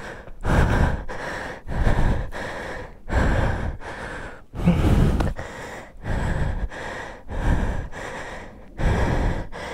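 A man panting hard, one heavy breath in or out about every second, catching his breath after exertion.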